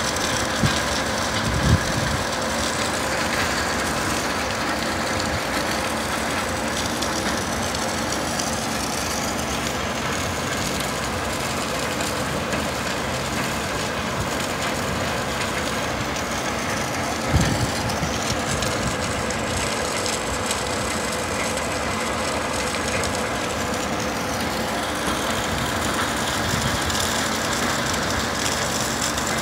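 Steady mechanical running noise with a few short thumps, the loudest about 17 seconds in.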